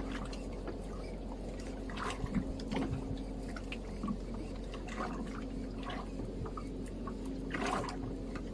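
Water sloshing and dripping around a small fishing boat, with scattered light clicks and knocks and a faint steady hum underneath.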